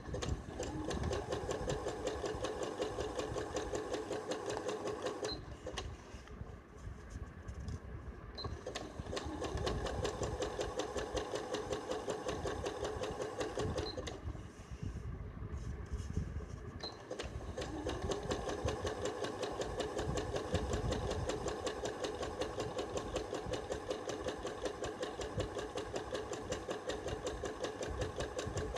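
Button-controlled electric sewing machine running a zig-zag stitch, rolling a hem along the edge of a saree, with a fast, even needle rhythm. It stops twice, about five seconds in and again around fourteen seconds, each time for about three seconds, with a small tick as it stops and as it starts again.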